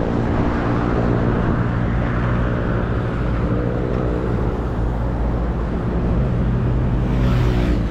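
Road traffic: motor vehicles running past on a highway, with a steady engine drone that fades a second or so in and rises again near the end.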